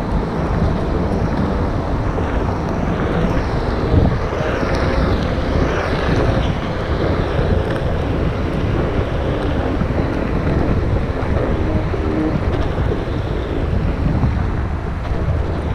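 Wind buffeting the microphone while riding a Onewheel XR electric board: a loud, steady rumble with no let-up.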